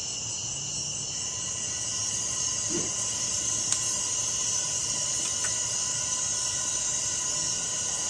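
Gas hissing from a gas forge's burner as it is lit by hand, with a soft low puff about three seconds in.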